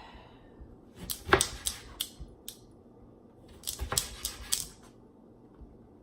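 Kitchen prep clatter: two short clusters of sharp clicks and knocks, one about a second in and another about four seconds in.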